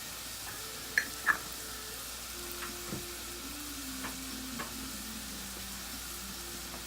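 Onions sweating in olive oil in a pan, sizzling with a steady hiss. A few sharp clicks come through, two close together about a second in.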